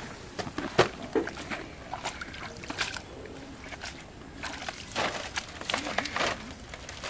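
Water sloshing and irregular knocks from a plastic tub of live fish as it is lifted and carried.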